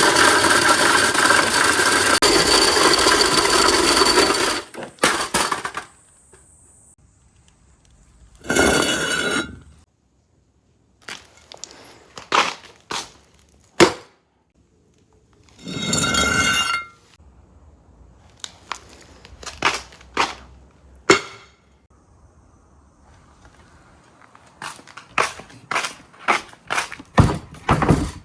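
Marbles rolling and clacking along a marble run: a loud rolling rush for the first four or five seconds, two shorter ringing rolls about 9 and 16 seconds in, and scattered sharp clicks of marbles striking the track, quickening into a run of clacks near the end.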